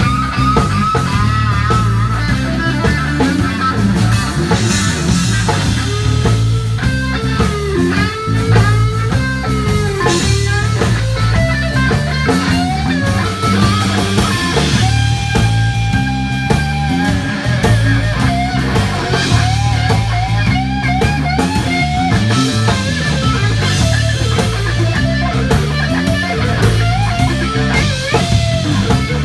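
Live blues-rock band playing an instrumental passage: an electric guitar plays lead lines full of string bends and vibrato, with a long held note about halfway through, over a drum kit and a steady bass line.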